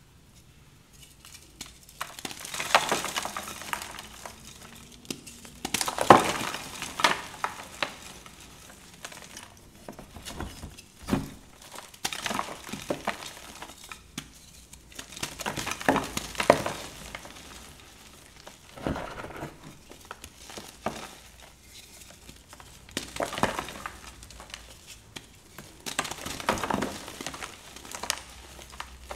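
Soft reformed gym chalk blocks being squeezed and crushed by hand into powder: crumbly crunching in about eight squeezes of a second or two each, with quieter gaps between.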